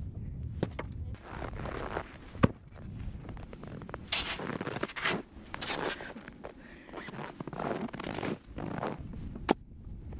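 Snow being scraped and knocked off a tent cover with a long wooden pole: rough scraping and rustling sweeps, strongest about halfway through, with scattered sharp wooden knocks.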